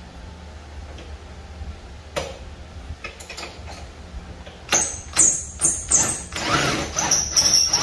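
Metal clicks and clanks of hand tools working on a car's front suspension. After a low steady hum, a run of sharp strokes starts about two-thirds of the way through, roughly two to three a second, with a high metallic ring.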